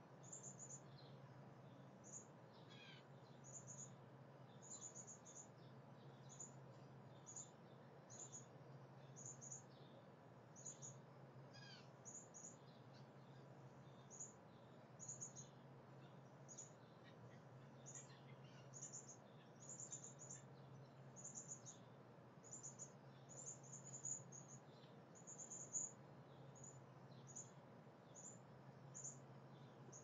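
Faint, high-pitched bird chirps repeating about once or twice a second, with a couple of falling calls mixed in. A faint low hum comes and goes underneath.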